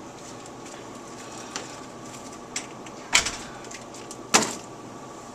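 Two sharp knocks, about three seconds in and again just over a second later, with a few faint ticks between them, over a steady room hum.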